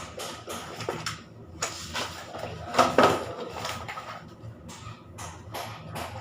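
Irregular knocks and clicks, with a louder pair of knocks about three seconds in, over a low steady hum.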